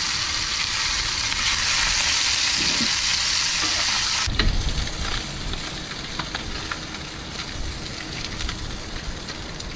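Fish fillets sizzling in hot olive oil in a cast-iron skillet, a steady frying hiss. About four seconds in it turns quieter, with light clicks of metal tongs against the pan as the fillets are turned.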